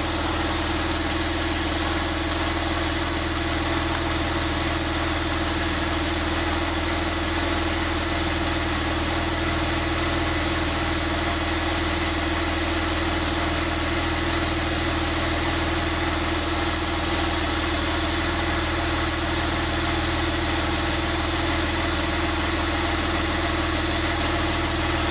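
Porsche 911 Turbo (991) 3.8-litre twin-turbo flat-six idling steadily, heard from inside the cabin, warming up on fresh oil after an oil change.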